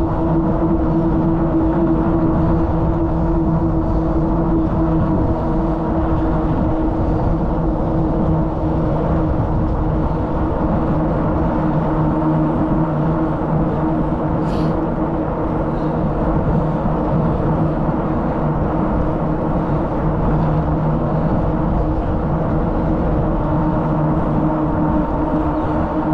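Steady wind rush and rolling tyre hum from riding a bicycle on pavement at an even pace.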